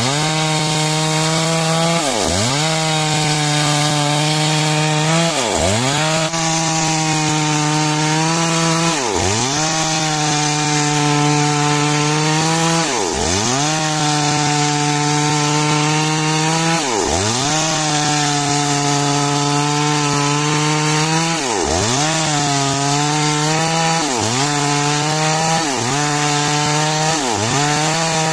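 Two-stroke chainsaw running at high revs while sawing timber into beams. Every two to four seconds its engine speed drops sharply and climbs straight back up.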